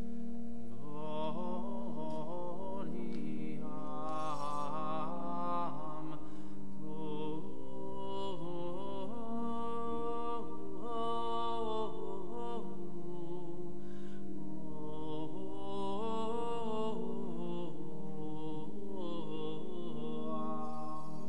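Slow sacred vocal music: voices chanting a melody over long held low notes.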